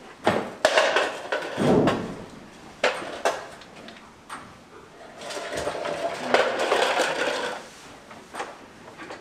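Handling noise: a series of knocks and clatters, then a few seconds of scraping and rustling, as a small plastic Ubiquiti wireless repeater is carried and dragged along on its Ethernet cable.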